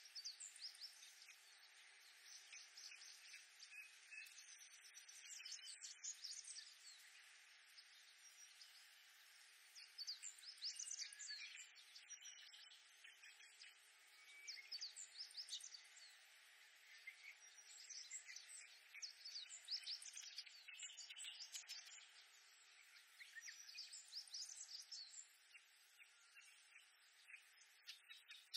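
Reed warblers singing in bouts of quick, chattering notes a few seconds long, with short pauses between, over a faint steady background hiss.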